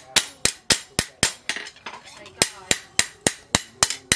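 Hand hammer striking a leaf-spring steel billhook blade on a steel anvil block while it is forged into shape: sharp metallic strikes about four a second, pausing for about a second midway before the strikes resume.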